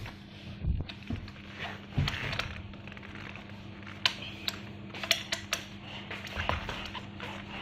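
Light metallic clicks and clinks of an Allen key turning and being re-seated in a socket screw on an electric scooter's folding stem joint, as the screw is tightened. The clicks come irregularly, several of them in the second half.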